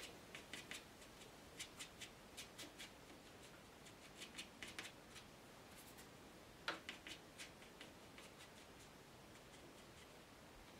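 Watercolour brush tapping and dabbing on rough paper: faint soft taps in short clusters, the strongest group a little under seven seconds in.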